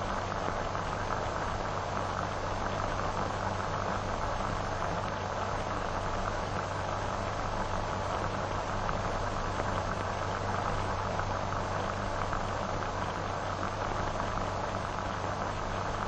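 Steady hiss and low hum of an old optical film soundtrack, with no narration or music.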